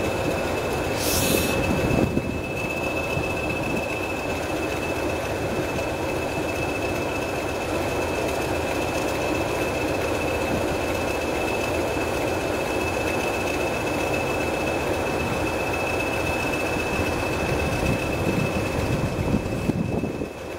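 English Electric Class 20 diesel locomotive's eight-cylinder engine working as it pulls slowly away, a steady low rumble under a constant high-pitched whistle. A short high hiss comes about a second in.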